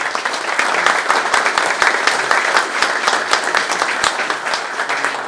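Audience applauding: dense, steady clapping from many hands that starts to die down near the end.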